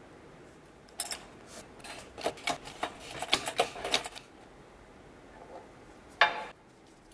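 A run of quick, irregular light metallic taps and clinks as a steel bush driver is worked against the bore of a brake caliper, seating a bush, then one louder metal clank a little after six seconds.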